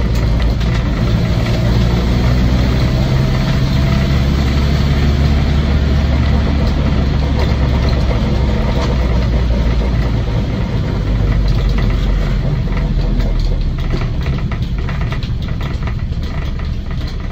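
The 2-litre engine and drivetrain of a 1956 Land Rover Series 1 86-inch station wagon, heard from inside the cab while driving: a steady low drone that gets a little quieter near the end.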